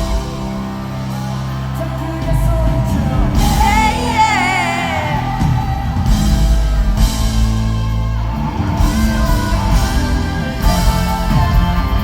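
A male singer and a live rock band with electric guitar play through a PA system in a large hall. A held, wavering vocal note comes about four seconds in.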